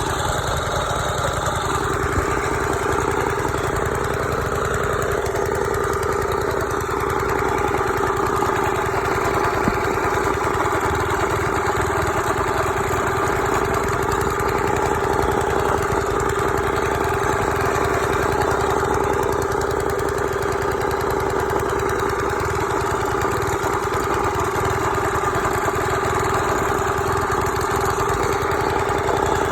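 Tru-Cut reel mower's older 3 hp Briggs & Stratton single-cylinder engine running at a steady speed, with the reel blade engaged and spinning.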